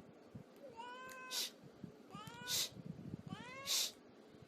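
Cat meowing three times, about a second apart. Each short call rises a little in pitch and ends in a brief breathy hiss.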